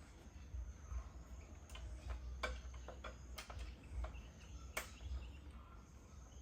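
Irregular light clicks and taps, about a dozen, unevenly spaced, the sharpest near the middle, over a steady low hum.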